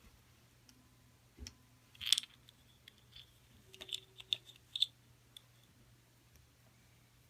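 Small plastic toy pieces being handled: a light knock, a short rattle about two seconds in, then a quick run of clicks and taps around four seconds in.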